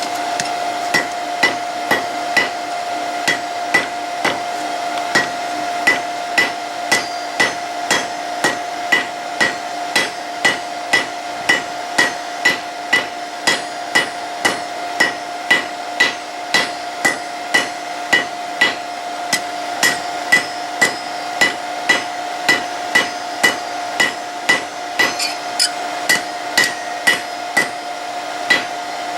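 Hammer blows on hot high-carbon steel (an old file) over an anvil, drawing out a rat-tail taper for a flint striker: a little under two strikes a second in a steady rhythm, each with a short metallic ring. A steady hum runs underneath.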